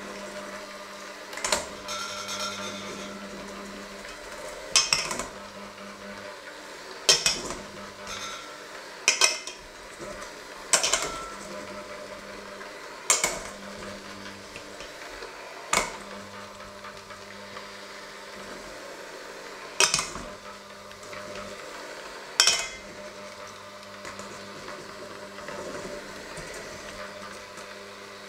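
Electric hand mixer running steadily with its beaters in a stainless steel bowl. About nine sharp metallic clanks sound at irregular intervals of roughly two seconds as the beaters strike the bowl.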